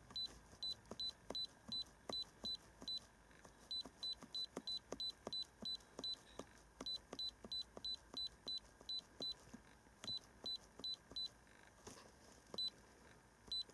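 Key beeps of an iCarsoft i930 handheld diagnostic scan tool as its menu is scrolled press by press: short high-pitched beeps, about three a second in runs with short pauses, each with a faint click of the button.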